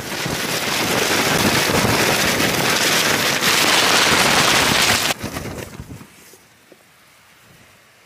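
A strong gust of wind rushing over a lightweight tent and the microphone: a loud rush for about five seconds that drops away suddenly and dies down over the next second.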